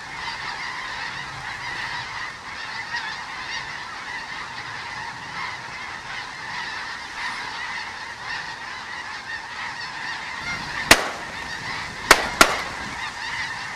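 A large flock of geese honking overhead, a dense continuous clamour of many calls. Near the end three gunshots ring out, the last two close together.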